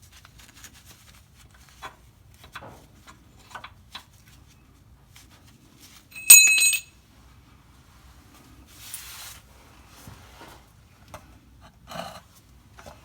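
Metal parts and tools being handled: light clicks and knocks, with one loud ringing clank of struck metal about six seconds in, a short hiss a little later and another knock near the end.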